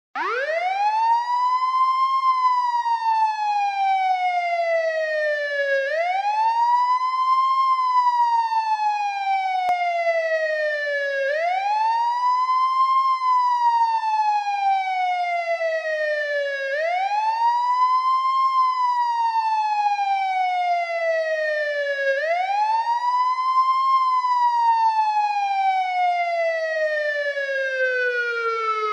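Police siren sounding a slow wail: the pitch climbs quickly for about two seconds, then falls slowly for about three and a half, and the cycle repeats about every five and a half seconds, five times over.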